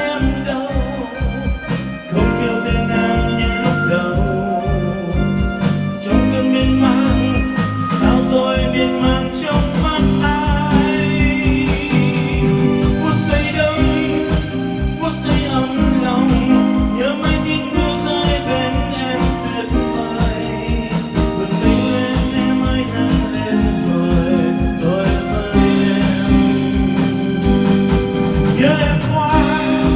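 A song playing with a steady beat, sustained instrumental notes and a singing voice.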